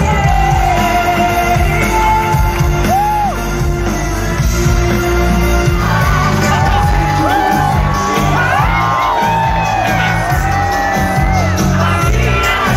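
Live pop concert heard from inside the crowd: loud amplified music through the festival PA, with a heavy bass beat and a woman singing. Fans shout and whoop along, most of all in the second half.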